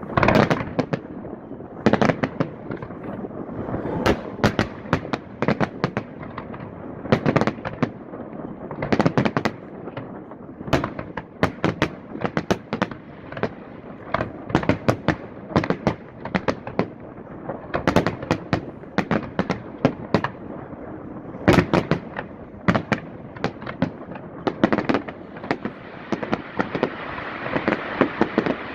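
Fireworks display: aerial shells bursting in irregular volleys, many sharp bangs, some in quick clusters, with a crackling hiss building near the end.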